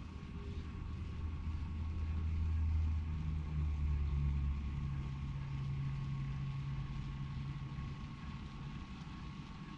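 A train running past: a low rumble that swells to its loudest about three seconds in and then eases, with a steady hum over it from about three seconds in until near the end.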